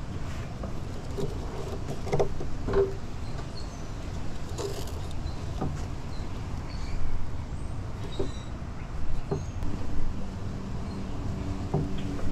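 Rope and a PVC pipe handle being worked by hand against a plastic barrel: scattered rustles of rope pulled through and knotted, with light knocks of the pipe on the barrel, over a steady low rumble.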